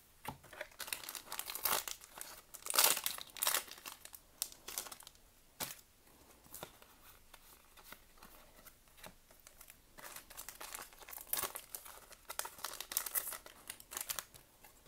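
Crinkling and rustling as Pokémon cards and their booster-pack wrapper are handled, in two busy spells, from about a second in to four seconds and again from about ten to fourteen seconds.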